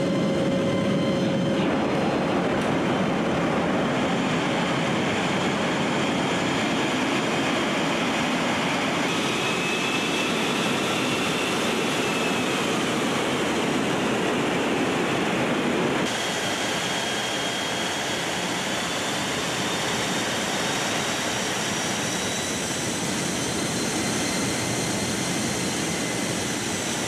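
Steady loud noise inside a C-17 transport in flight: its turbofan engines and rushing air, with a faint high whine that drifts slowly in pitch. The noise drops a little and changes character abruptly a little past halfway.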